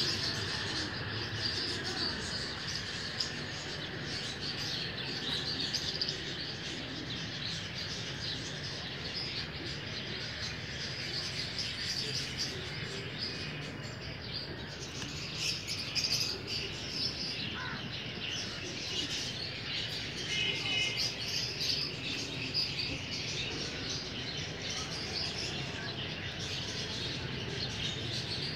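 Many small birds chirping at once in a steady, dense chorus.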